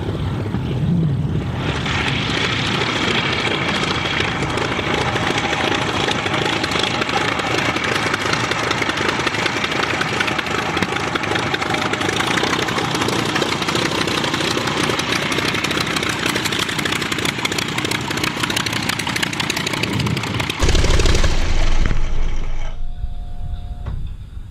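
Verner Scarlett 5Si five-cylinder radial engine and propeller of a Fisher Avenger running steadily at low power as the plane rolls and taxis. Near the end the sound cuts to a louder, lower rumble close to the engine, which then dies away.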